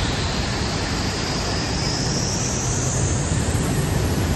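Steady industrial roar of steel plant machinery, with a low hum underneath and a faint high whine that rises in pitch through the middle.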